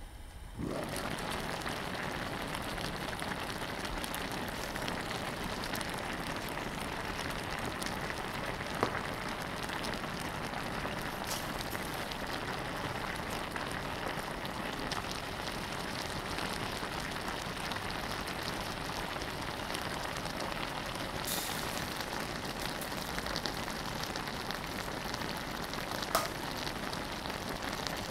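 Braised pollack, vegetables and chili sauce simmering in an open pot, a steady dense sizzling and bubbling as the sauce reduces. The sizzle gets louder about half a second in, as the glass lid comes off, with a couple of faint clicks along the way.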